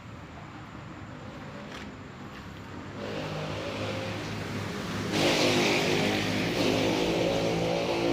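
Honda Wave 110's single-cylinder four-stroke engine with a loud custom-built exhaust, running with a choppy, hard-hitting idle. It is revved up about 3 seconds in and again, louder, about 5 seconds in.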